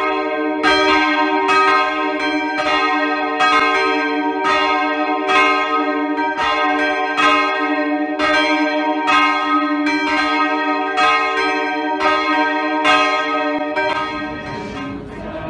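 Three church bells ringing together, rung in mourning and solidarity, with overlapping strokes about two a second over a steady hum. The strokes stop about two seconds before the end and the ringing dies away.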